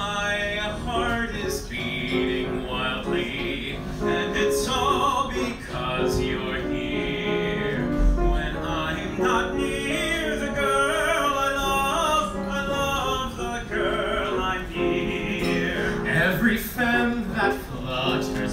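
Mixed group of male and female singers performing a medley together into microphones, the voices amplified over the room.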